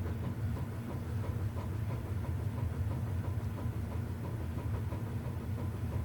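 Lasko box fan switched off, its five-bladed fan coasting down, giving a steady low rumble of moving air.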